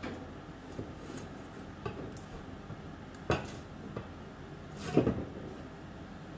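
A few scattered clunks and knocks of metal parts being handled at an ATV's front wheel hub and brake rotor, the two loudest about three and five seconds in.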